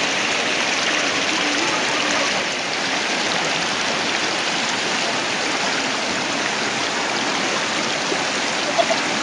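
Fast-flowing floodwater rushing steadily, a constant watery roar.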